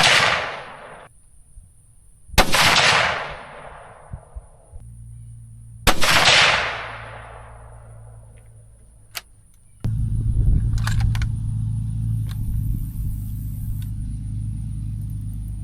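Rifle shots during target sighting-in: the echo of one shot fades at the start, then two more sharp shots each roll off in a long echo over a couple of seconds. About ten seconds in, a vehicle engine starts running steadily and continues.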